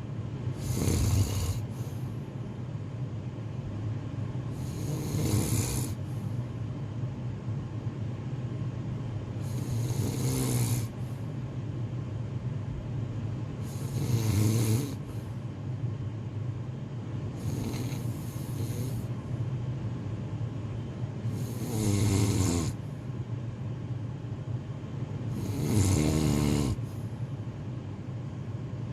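A person snoring: slow, rhythmic snores about every four seconds, seven in all, each a loud rasping breath, with a low rumble carrying on between them.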